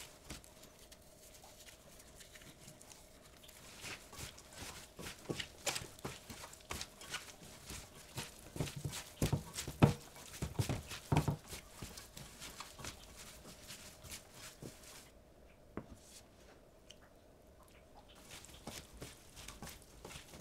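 A gloved hand tossing and rubbing shredded cabbage and carrot with chili flakes in a stainless steel bowl: irregular rustling and light taps of the vegetables against the bowl, loudest about halfway through.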